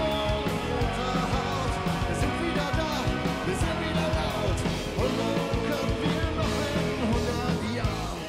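A live band playing an up-tempo rock song with singing, guitar, bass and drums. Just before the end the sound drops quieter, leaving mostly guitar.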